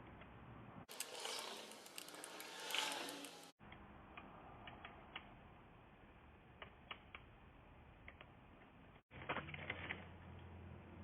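Small metal bicycle parts being handled, with scattered light clicks and rattles. The sound cuts off abruptly twice as short clips change.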